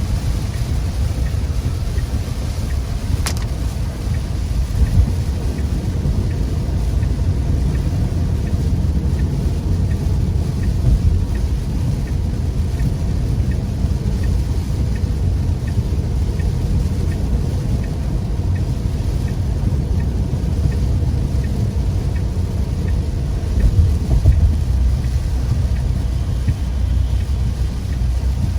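Car driving through heavy rain, heard from inside the cabin: a steady low rumble of road, engine and rain on the car, with a single sharp click about three seconds in.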